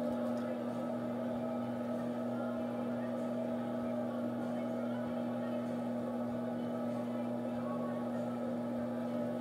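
Electric pottery wheel's motor humming steadily as the wheelhead spins at constant speed.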